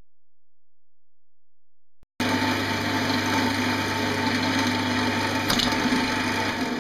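Silence for about two seconds, then a wood lathe running with a steady motor hum while a gouge cuts a spinning green pear-wood bowl blank, a continuous rough scraping of the cut. A short click a little before the end.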